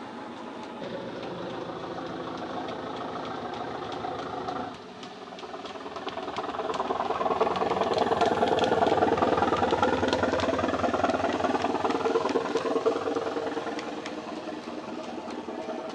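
Model Class 205 'Thumper' DEMU's DCC sound decoder playing the diesel engine sound through its small on-board speaker, a steady engine note. About five seconds in it grows louder and climbs in pitch as the engine is notched up, then eases off near the end.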